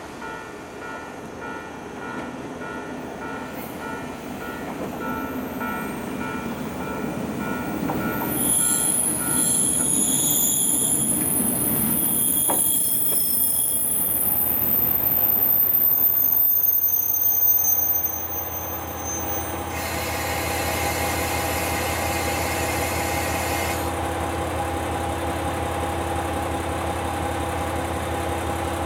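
JR West KiHa 40 diesel railcar pulling in and stopping. Wheels and engine grow louder as it approaches, and the brakes squeal high-pitched through the last several seconds of braking. Once it stops, the diesel engine idles steadily, with a hiss lasting a few seconds soon after the stop.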